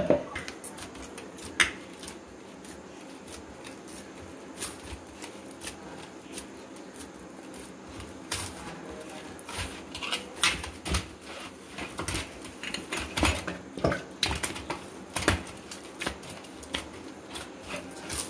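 Hands kneading wheat-flour dough in a wide metal plate (paraat): irregular soft taps and knocks of hands and dough against the plate, coming thicker in the second half.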